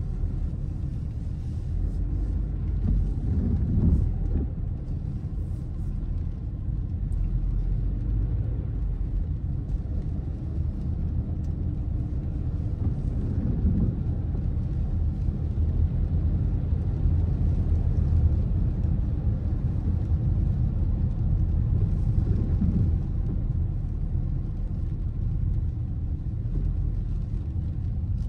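Steady low rumble of a car driving slowly on wet pavement, heard from inside the cabin, with a few brief swells.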